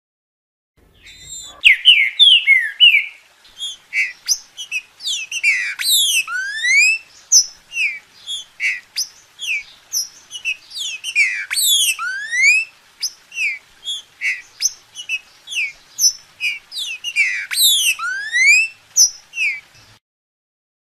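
Green-winged saltator (trinca-ferro) singing: a fast run of loud whistled notes, many sliding up or down in pitch. It starts about a second in and cuts off suddenly near the end.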